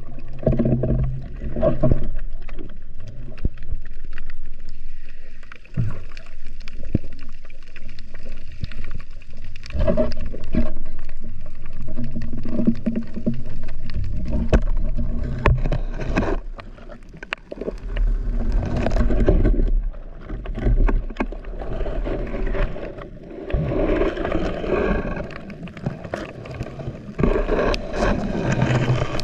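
Muffled underwater noise picked up by a camera in a waterproof housing: water moving around it, with frequent small clicks and knocks scattered through.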